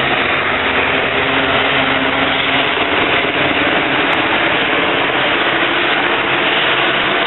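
Race team support cars driving past one after another, a steady mix of engine and tyre noise.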